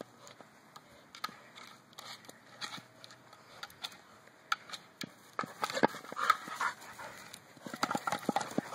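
A dog playing with a large toy ball on grass: a run of knocks and clicks as its mouth and paws hit the ball, busiest about halfway through and near the end.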